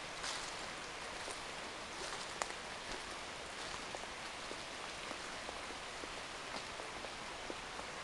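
Steady rushing hiss of a small woodland stream, with scattered light crackles of dry leaves underfoot.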